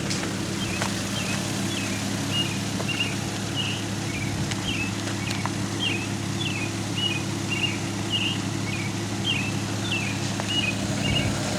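Small songbird chirping short repeated notes, about two a second, over a steady low engine hum.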